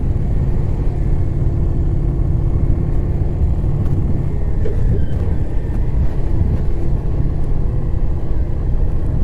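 Indian Challenger motorcycle's 1768 cc V-twin running at low speed on a dirt track, under a heavy, steady low rumble.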